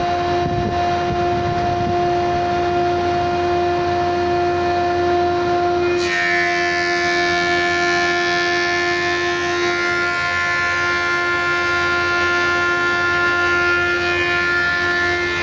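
VH-MB2032 double-side planer running with a steady machine whine from its flat-blade cutter shafts. About six seconds in, a higher whine and more hiss come in abruptly and carry on steadily.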